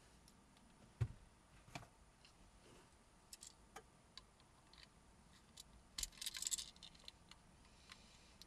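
Small plastic clicks and taps as a car remote key's casing and button pieces are handled and fitted back together by hand. A sharp click comes about a second in, and a short cluster of rattling clicks about six seconds in.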